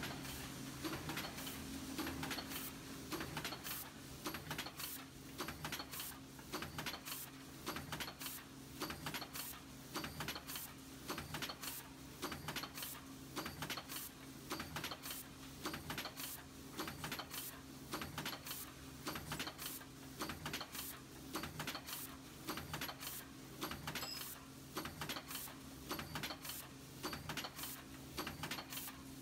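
Aluminium foil container press with a two-cavity smooth-wall mould stamping containers from foil strip. It gives a fast, even rhythm of metallic clacks over a steady machine hum.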